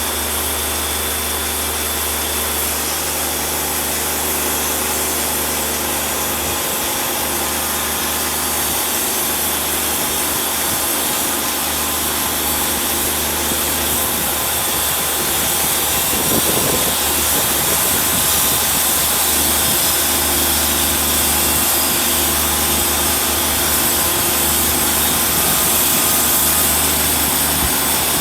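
Wood-Mizer portable band sawmill running, its engine holding a steady note while the band blade cuts through a log with a continuous hiss. The engine note wavers briefly a little past the middle, then steadies again.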